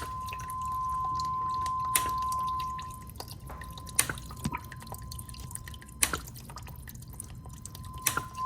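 A steady 1 kHz sine tone from a signal generator, the setting that shuts off the pump and opens the drain valve, stops about three seconds in. Water drips from the upper basin through the open valve into the lower basin, with sharp drops about every two seconds.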